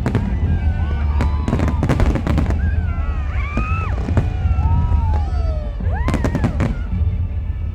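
New Year fireworks going off in quick, irregular bangs over a constant low rumble. High tones glide up and down through the middle of it.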